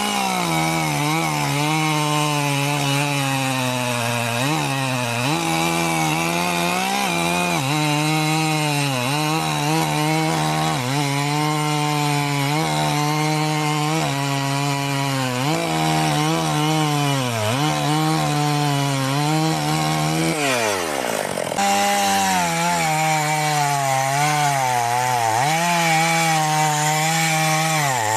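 Two-stroke Husqvarna chainsaw fitted with a carburettor from a 257, running at high revs while cutting wood, its pitch dipping again and again as the chain bites under load. About twenty seconds in, the engine speed falls away sharply, then it is abruptly back at full revs.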